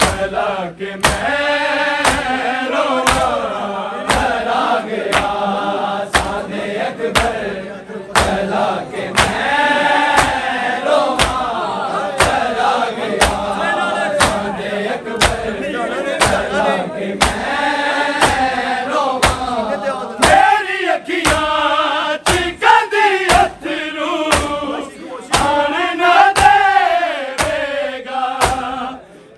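Men's group chanting a Punjabi noha (Shia lament), with sharp rhythmic strikes about two a second under it: the mourners' matam, chest-beating with the hands in time with the noha.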